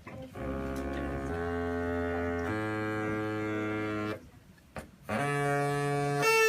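Straw oboe made of several drinking straws joined end to end, blown in long reedy notes that step up in pitch as straws are pulled off the bottom. The first breath climbs three steps; after a short breath, a second one starts higher and steps up again. The shorter the tube, the higher the note.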